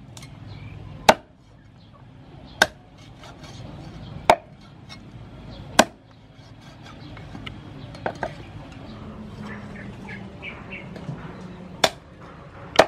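Meat cleaver chopping raw chicken on a thick round wooden chopping block: single sharp chops about one and a half seconds apart, a pair of lighter taps about eight seconds in, then two more chops near the end.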